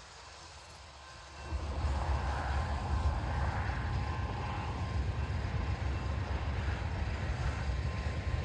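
Grain train of covered hoppers rolling past, a steady low rumble of wheels on rail that starts suddenly about a second and a half in.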